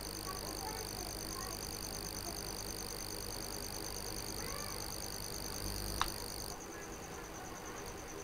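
Steady background hum with a rapid, high-pitched pulsing trill that cuts off about six and a half seconds in. A single sharp click, a keyboard key being struck, comes just before the trill stops.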